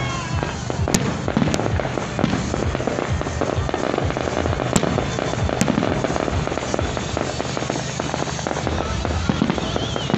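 Aerial fireworks going off continuously: a dense crackle of bursts and bangs, with a few sharper reports now and then.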